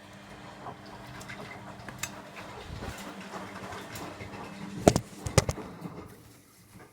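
Food and kitchen items being handled: a rustling, shuffling noise with a few sharp knocks about five seconds in.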